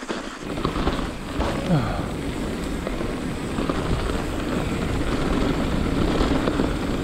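Mountain bike running fast down a dirt trail: a steady rush of wind on the camera microphone mixed with tyre rumble and small knocks from the bike, setting in about half a second in.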